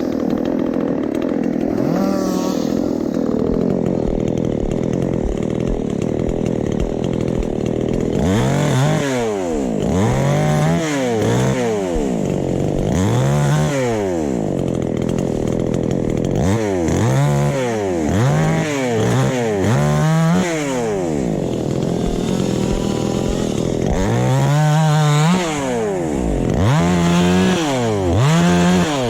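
Chainsaw running steadily, then from about eight seconds in revved up and down again and again, its pitch rising and falling in repeated swells.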